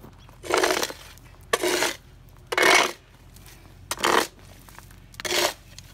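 GradrBlade long-handled scraper blade scraping across wet pavement, pushing dirt off the surface in five short strokes about a second apart.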